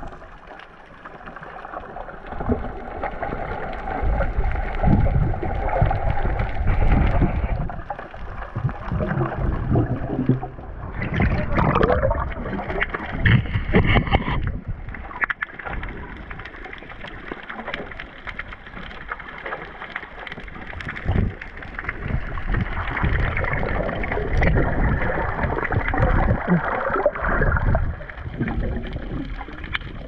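Muffled underwater sound picked up by a camera in a waterproof housing: water gurgling and sloshing around it, with irregular dull knocks and surges as the diver moves and handles the net.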